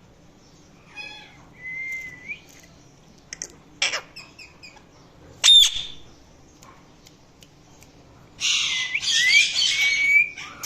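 Indian ringneck parrot calling in several short bursts: a brief call, a rising whistle, a few clicks, and a single sharp squawk about halfway, the loudest moment. Near the end comes a long, harsh chattering squawk with a whistle running through it.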